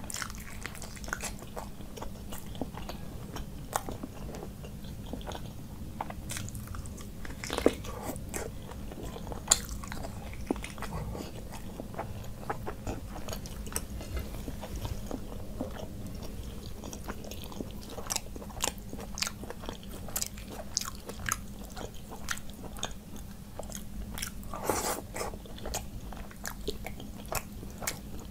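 Close-miked chewing of curry and rice eaten by hand, full of short wet mouth clicks, with fingers working the rice and curry on the plate; a low steady hum sits underneath.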